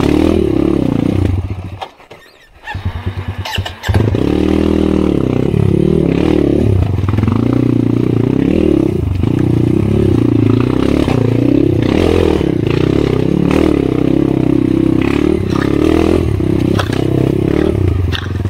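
Kawasaki KLX 150 single-cylinder four-stroke dirt-bike engine revving up and down as the bike climbs a rocky trail, with knocks from the rough ground. About two seconds in, the engine sound drops away almost completely. It comes back about four seconds in with a rising rev and runs on loud.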